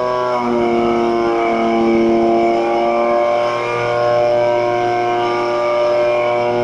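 DLE 30cc single-cylinder two-stroke gas engine of a quadcopter running with a steady, droning note, together with its rotors. The pitch shifts slightly about half a second in and then holds as the craft hovers just above the ground.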